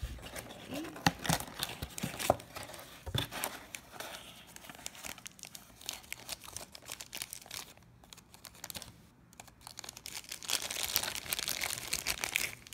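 Clear plastic wrapping around a 3D pen crinkling as it is pulled out of a cardboard box and handled, with irregular crackles that are busiest near the end.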